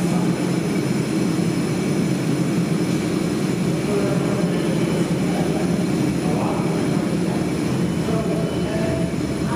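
R142 subway train approaching through the tunnel: a steady, loud rumble of wheels on rail, with a faint steady tone coming in near the end as its headlights come round the curve.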